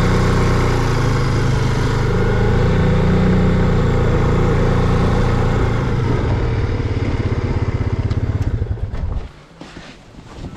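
Gas-powered ice auger engine running steadily while drilling a hole through lake ice. It then slows to a pulsing idle and cuts off about nine seconds in.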